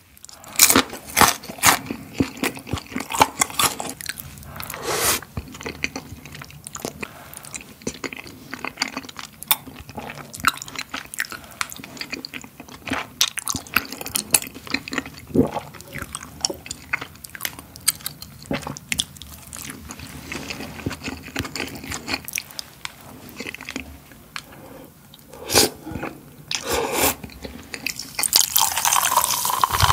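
Close-miked biting and chewing of crunchy cereal-flake-coated fried chicken: many short, sharp crunches. Near the end, canned cola is poured fizzing into a glass.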